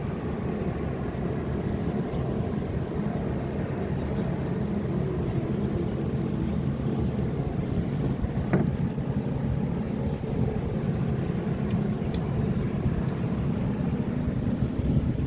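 Steady low rumble of a running vehicle engine, with a single short click about eight and a half seconds in.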